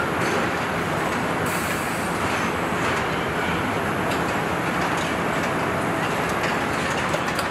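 Steady, even rushing noise of an engine assembly hall, with no clear tone or rhythm.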